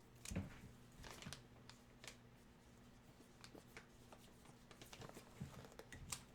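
Faint, scattered light clicks and rustles of jersey packaging being handled, over near silence.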